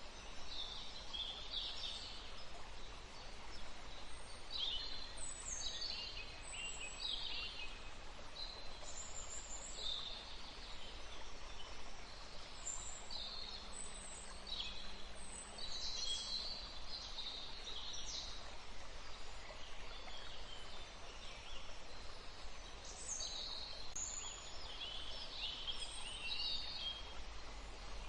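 Forest ambience: many small birds chirping and singing in short, high calls over a steady low hiss of flowing water or wind in trees.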